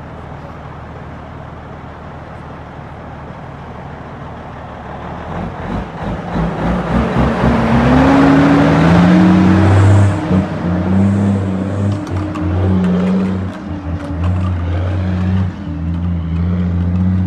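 International 9900 dump truck passing close by with its diesel engine running. The engine rumbles low at first, swells to its loudest as the truck goes past about eight seconds in, its note climbing, then carries on steadily with brief dips as it pulls away.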